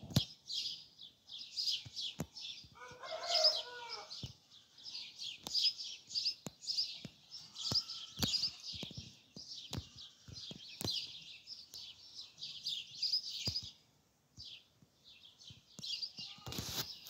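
Many small birds chirping continuously in a dense, high-pitched chatter that pauses briefly near the end. A chicken calls once, for about a second, around three seconds in, and sharp clicks are scattered throughout.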